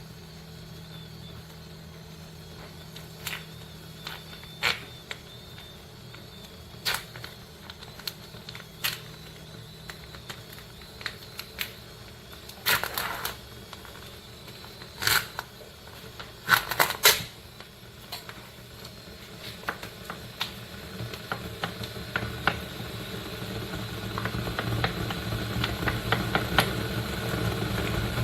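Electric kettle: scattered clicks and knocks, a few close together near the middle, then a steady rushing rumble that grows louder over the last several seconds, as the water begins to heat.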